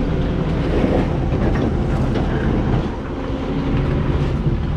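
A large engine running steadily, a low rumble with some light rattling and clatter over it.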